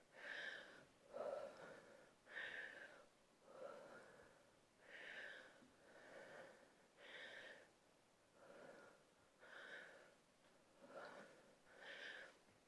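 A woman breathing hard and rhythmically while exercising with a dumbbell, faint puffs of breath about one every second. Her breathing is laboured from the exertion of the lunges and deadlifts.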